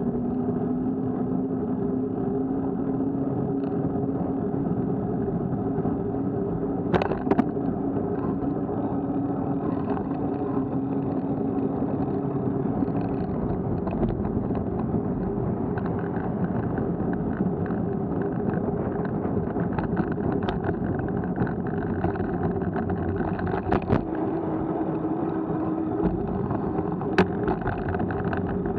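Steady rush of wind and road noise on an action camera carried by a moving rider, with a hum that slowly rises in pitch over the first dozen seconds. A few sharp knocks, about a quarter of the way in and near the end.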